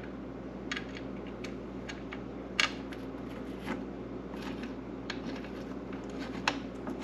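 Scattered light metallic clicks and taps from hand tools and hardware as a small M6 bolt is worked into a snowmobile rail brace, over a steady low hum. The clicks come irregularly, about one a second, with one louder click a few seconds in.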